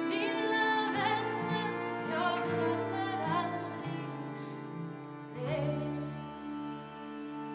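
Swedish traditional folk tune played by two violins over held harmonium chords and a twelve-string acoustic guitar. About five and a half seconds in, a new low chord comes in.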